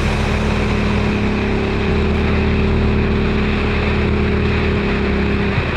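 Motorcycle engine running steadily at cruising speed with heavy wind rush, heard from a handlebar-mounted camera.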